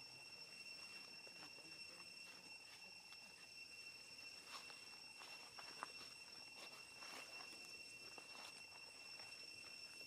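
Near silence, with a faint steady high-pitched drone of insects and a few soft scattered rustles and ticks.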